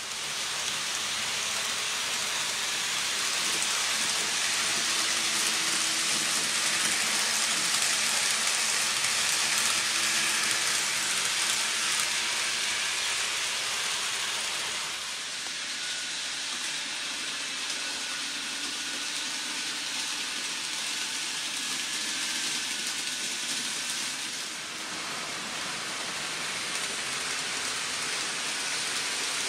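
N-gauge model train running on the layout's track: a steady rushing hiss with a faint high motor whine, easing off a little about halfway through.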